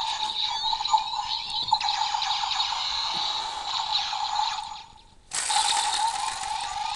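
Power Rangers Dino Charge Morpher toy playing its electronic morph sound effect through its small speaker: a steady electronic tone over a hiss. It dies away about five seconds in and starts up again half a second later.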